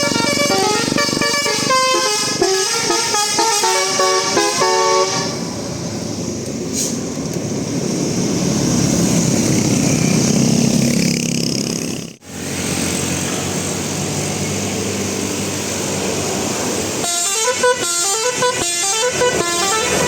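Bus 'telolet' horn, a multi-tone air horn playing a quick jingle of stepped notes, in traffic. It sounds for about the first five seconds, gives way to engine and traffic noise, and plays again near the end.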